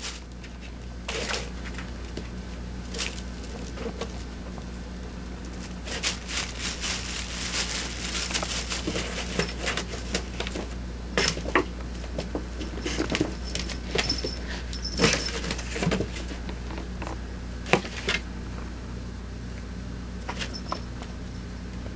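Kitten scrabbling and pouncing around a cardboard box: scattered scratches, taps and rustles of paws on cardboard and carpet, busiest in the middle, over a steady low hum.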